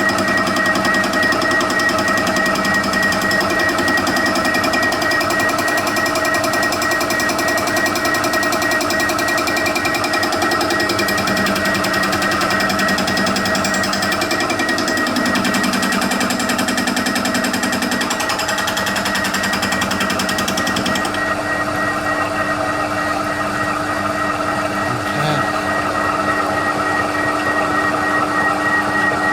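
TOS milling machine running, its flycutter taking a light facing cut across a warped exhaust manifold: a rapid hammering chatter from the interrupted cut over the steady whine of the machine's gearing. About two-thirds of the way through, the chatter thins and a lower steady hum is left.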